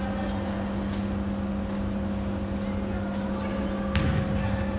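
Steady low hum and rumble filling a large sports hall, with a single sharp knock about four seconds in.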